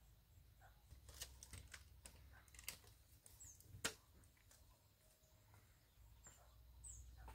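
Faint scattered clicks and taps, the sharpest about four seconds in, with a few short high bird chirps.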